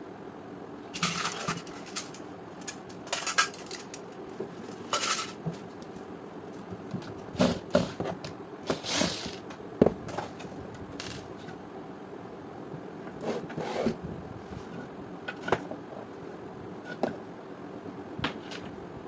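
Irregular clicks, knocks and short scrapes of hard plastic and metal parts being handled and pried at, as when taking apart a steam iron, over a steady low hum.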